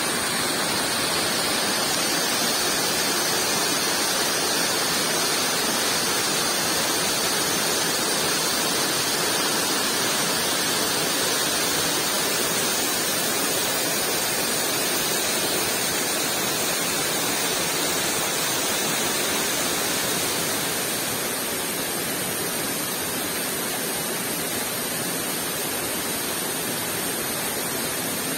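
Steady roar of a waterfall: an even rush of falling water, a little quieter about twenty seconds in.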